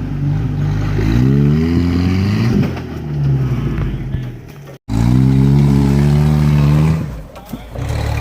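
Off-road 4x4's engine revving hard in long throttle bursts, its pitch climbing under load as it works up a rock obstacle. The sound drops out for an instant just under five seconds in, then the engine revs up again.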